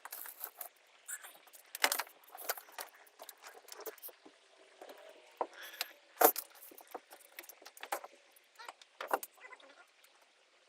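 Irregular metallic clinks and knocks of hand tools and hardware being handled during wiring removal, with a louder knock about two seconds in and another about six seconds in.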